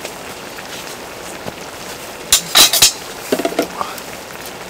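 Pork and kimchi stew simmering and sizzling on a cauldron-lid griddle, a steady hiss. A burst of sharp metal clatter comes a little over two seconds in, followed by a few lighter ringing clinks about a second later.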